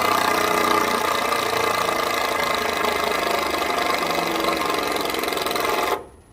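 An engine running steadily, which cuts off abruptly near the end.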